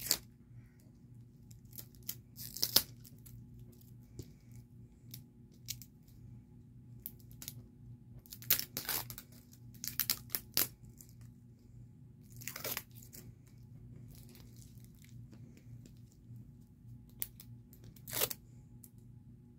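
Thin plastic wrapping being picked at and peeled off a hard plastic toy surprise ball: scattered crinkles and short tearing rips, coming in small clusters with quiet gaps between.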